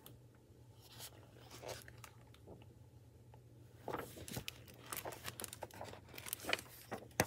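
Plastic library book cover crinkling and pages rustling as a picture book is handled and a page is turned: scattered soft crackles, sparse at first and busier from about four seconds in.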